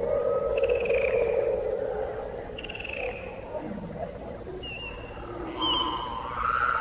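Frogs calling in chorus: a low pulsing trill, loudest in the first couple of seconds, with short higher chirps repeating about every two seconds.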